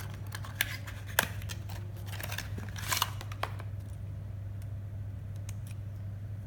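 Hard plastic toolbox-style memory card case being handled, with a few scattered sharp clicks and knocks, a cluster of them about three seconds in. A steady low electrical hum runs underneath.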